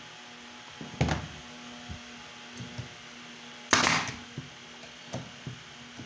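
A knock about a second in, then a pneumatic brad nailer firing once near the middle, a sharp bang with a short hiss of air, driving a nail into the drawer box's last corner. A few light clicks follow.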